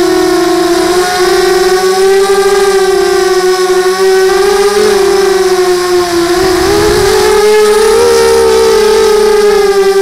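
Brushless motors and propellers of a 250-size FPV racing quadcopter, heard through its onboard camera: a loud, steady whine with several close tones beating against each other. The pitch wavers, dips about seven seconds in, then rises again.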